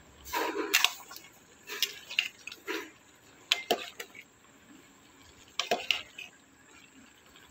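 A ladle clinking and knocking against a metal cooking pot while pork and cabbage soup is stirred: about eight irregular knocks with some sloshing, fewer near the end.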